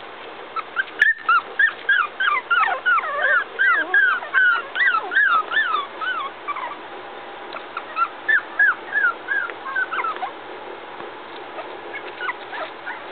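Three-week-old puppies whimpering in quick runs of short, high, arching squeaks, several a second. The squeaks thin out about six seconds in and pick up again for a couple of seconds before fading. A single sharp click about a second in.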